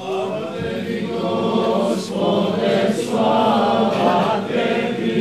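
Church choir of several voices singing in Orthodox chant: the sung response that follows the Gospel reading in the liturgy.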